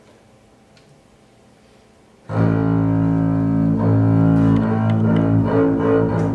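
After about two quiet seconds, a solo double bass played with the bow comes in suddenly with loud, sustained low notes, moving through several pitches.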